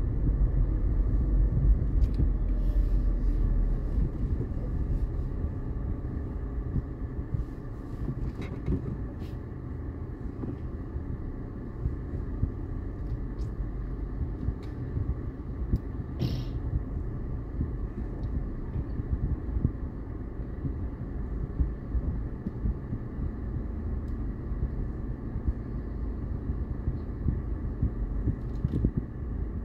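Car cabin noise: low engine and road rumble as the car rolls to a stop, dropping after about four seconds to a quieter, steady idle while it waits at a red light. A few faint clicks and one short high chirp near the middle.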